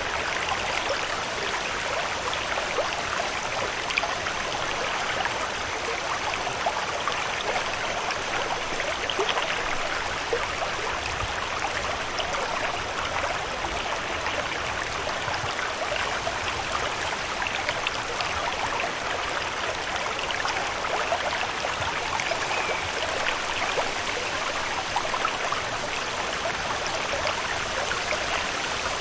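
Steady water ambience: a dense, even patter and trickle of water that stays unchanged throughout.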